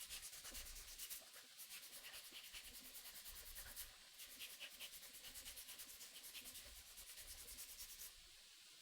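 Faint hand sanding on a knife handle: quick, even back-and-forth strokes, several a second, that stop shortly before the end.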